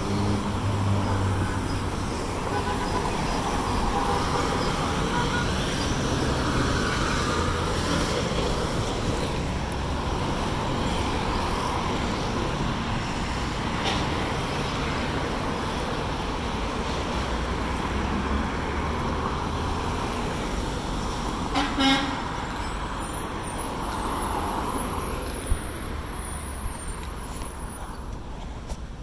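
Steady city street traffic noise with cars passing. A car horn toots briefly about three quarters of the way through.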